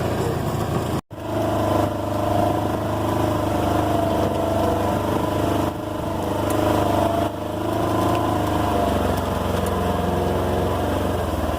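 Off-road vehicle engine running steadily while riding, its pitch holding fairly even. The sound cuts out abruptly for a moment about a second in.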